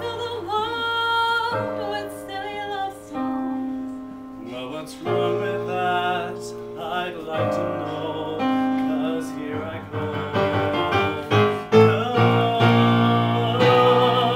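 A woman and a man singing a love-song duet in turn over piano accompaniment; she sings at first and he takes over partway through.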